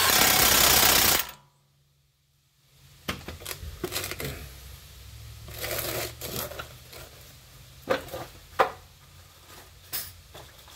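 Cordless power tool running in one burst of about a second and a half, driving home a 21 mm caliper bracket bolt. Then scattered light metallic clicks and taps of parts being handled.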